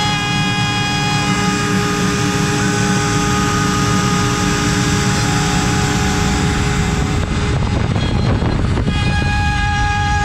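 CNC router spindle turning at 24,000 rpm, whining steadily as an 8 mm cutter mills wood. From about seven to nine seconds in, the whine fades under a louder rough cutting hiss, then comes back.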